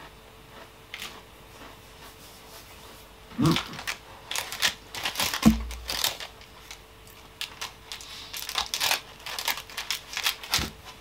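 Plastic snack wrapper crinkling as it is handled and turned over, in clusters of sharp crackles through the second half, with a soft thump about five and a half seconds in.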